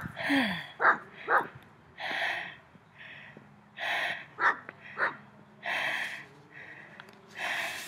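Dogs barking a few times in the first second and a half, then a run of breathy, half-second exhalations about once a second, like quiet laughter.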